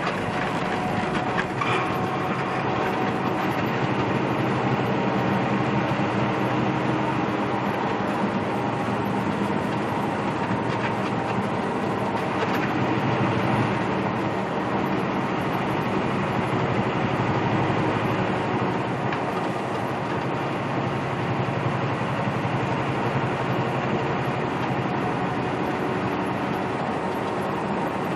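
Semi truck's diesel engine and tyres running at highway speed, heard as a steady drone inside the cab.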